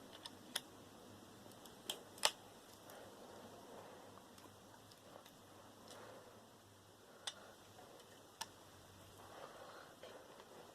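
Faint handling noise from work on a scrap transformer, with a few short sharp clicks and taps. The loudest comes about two seconds in, and two more fall later.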